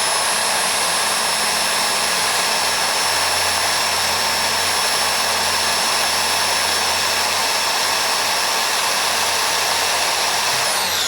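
Hand-held electric drill running at a steady high whine, with a 1.5 mm bit boring slowly into hard die-cast metal. Near the end the trigger is released and the whine falls in pitch as the drill spins down.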